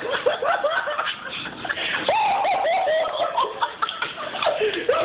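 A group of young men laughing together, with high rising and falling squeals of laughter.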